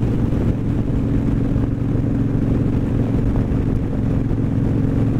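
Victory Vegas motorcycle's V-twin engine running steadily while cruising on the highway, with wind rushing over the microphone.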